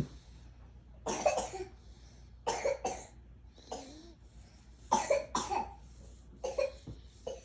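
A small child making about six short, harsh, cough-like bursts of breath, a second or so apart, as a mock imitation of snoring.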